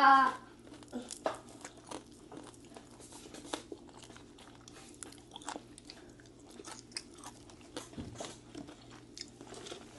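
Close-up chewing and crunching of crisp-fried fermented chicken wing (naem), with irregular crackly bites and mouth sounds. A brief voiced sound comes at the very start.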